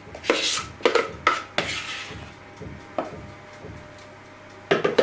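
Metal spoon scraping and knocking against a plastic mixer bowl as cocoa batter is scraped out, a series of short scrapes and clicks, most in the first two seconds and again in a cluster near the end.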